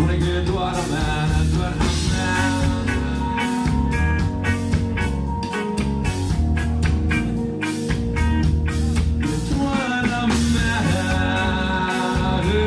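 Rock band playing live on electric guitars, bass guitar and drum kit, with a steady drum beat.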